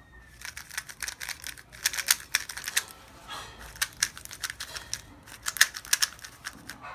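Plastic clicking and clacking of a MoFang Jiaoshi MF3RS2 M magnetic 3x3 speedcube being turned in its first turns out of the box, in quick irregular runs of clicks.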